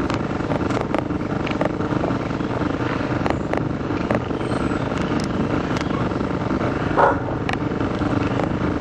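Steady low outdoor rumble with faint clicks at a regular pace; a dog barks once about seven seconds in.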